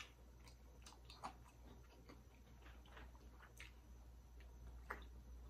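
Near silence with a few faint, scattered clicks and ticks: fingertips picking crumbs off a ceramic plate, then small handling and sipping sounds from a plastic water bottle.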